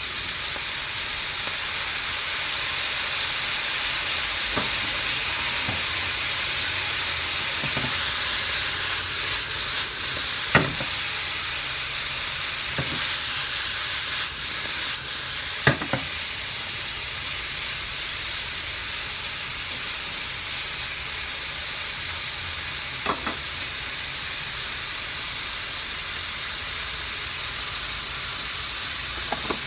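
Green beans and beef sizzling in a hot nonstick frying pan, a steady frying hiss. Three short sharp knocks of the pan break in about ten, sixteen and twenty-three seconds in as the pan is tossed.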